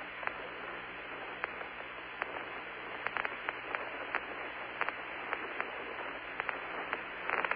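Steady hiss of the Apollo 16 air-to-ground radio link between transmissions, with scattered crackling clicks that come thicker near the end.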